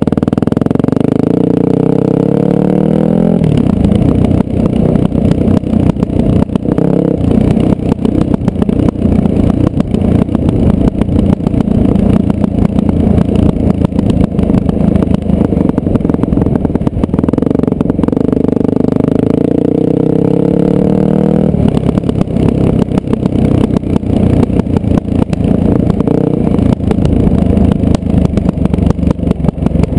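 Dirt bike engine running under throttle, its pitch rising and falling as the rider works the throttle and gears, with constant wind buffeting and rattling on the on-board microphone.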